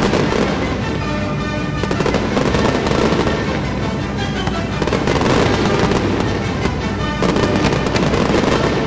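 Display fireworks firing in rapid succession: aerial shells, comets and mines launching and bursting in a dense run of bangs and crackle, with the show's music playing underneath.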